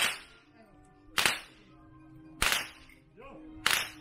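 A horseman's long whip cracked four times, sharp and loud, about one and a quarter seconds apart.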